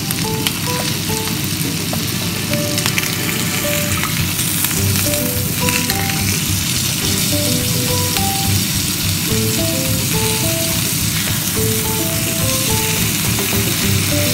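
Beef steaks sizzling steadily in butter on a hot grill pan, with metal tongs clicking against the pan a few times. Light background music of short melodic notes plays over it.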